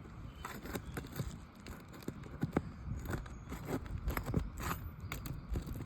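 Irregular scraping, rustling and light clicks of hands and tools working asphalt shingles, with a steady low rumble underneath.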